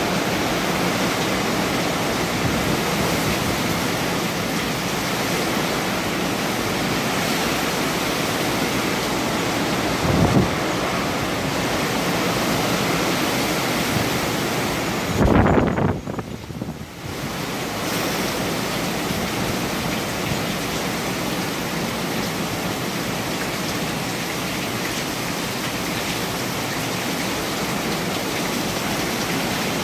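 Hurricane winds blowing hard and steadily. They swell louder about ten seconds in and again about fifteen seconds in, and after the second swell they briefly ease off.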